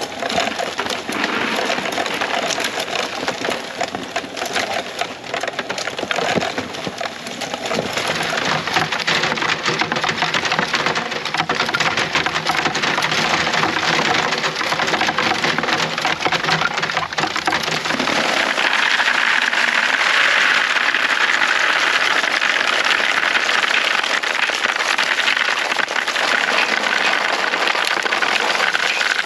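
Acorns clicking and rattling in the spiked roller and wire basket of a push nut-gatherer rolled over a lawn, a dense patter of many small clicks. About 18 seconds in the sound turns brighter as the gathered acorns and leaves are poured from the basket into a plastic bucket, a thick rattling shower.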